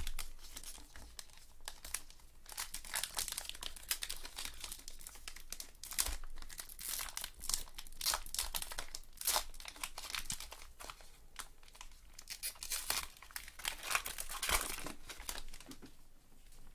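A shiny trading-card pack wrapper being torn open and crinkled by gloved hands, then the cards being handled: a steady run of irregular crackles and rustles.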